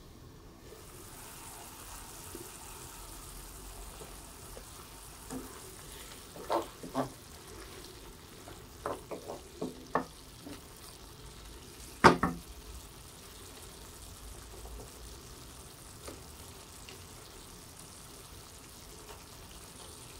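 Chicken slices simmering in sauce in a pan with a steady faint sizzle, stirred with a wooden spatula. There are several sharp clacks against the pan between about six and ten seconds in, and one loud knock about twelve seconds in.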